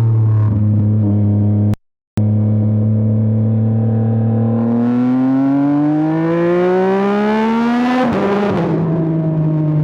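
2026 Yamaha R9's inline-three engine under way, holding steady revs, then accelerating with the pitch rising for about three seconds. The pitch drops abruptly at a gear change and then settles at lower revs. The sound cuts out for a split second about two seconds in.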